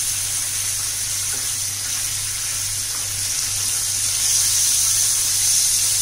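Hot oil sizzling steadily in a frying pan around thin cornflour-coated chicken slices, growing a little louder about four seconds in.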